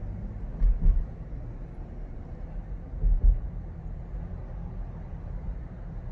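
Car cabin noise while driving slowly: a steady low rumble of engine and tyres, with low thumps about a second in and again about three seconds in.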